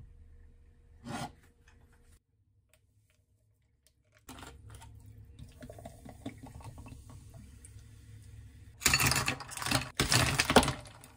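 Water poured from a plastic bottle into a tall glass for about four seconds, then ice cubes tipped in, clattering loudly against the glass in two bursts near the end.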